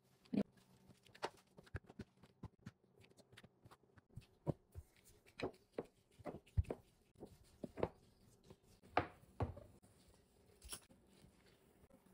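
Irregular soft taps and knocks of dough work on a silicone baking mat: a plastic bench scraper cutting and moving dough pieces and a wooden rolling pin rolling them out, with a few duller thuds among the clicks.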